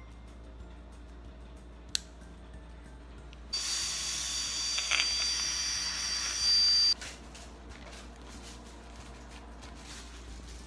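A single sharp click, then a dental handpiece whining at one steady high pitch for about three and a half seconds before cutting off suddenly, as leftover bracket cement is ground off the teeth after the braces are removed.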